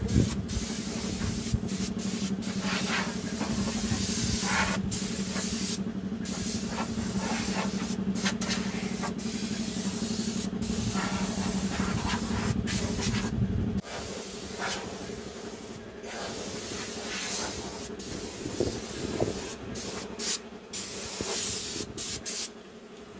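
Air spray gun hissing in repeated spurts as its trigger is pulled and released while painting a tractor. A steady low machine hum underneath stops suddenly about two-thirds of the way through.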